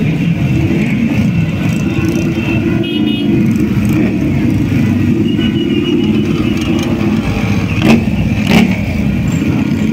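Several motorcycle engines running as a line of bikes rides slowly past close by. Near the end there are two sharp bangs about a second apart.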